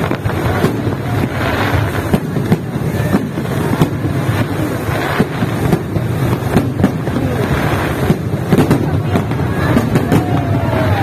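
Fireworks display: a steady run of sharp bangs and crackles from exploding shells, several a second.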